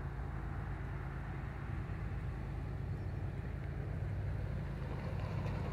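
A steady low rumble of a heavy engine or vehicle, even throughout, with no sharp knocks or horn.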